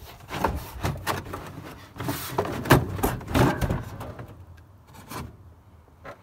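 Scraping, rubbing and knocking of a stiff, worn liner being pulled up off the floor of a VW Beetle's front trunk. The sounds come in a flurry over the first four seconds, loudest in the second half of it, then die down to a single small knock near the end.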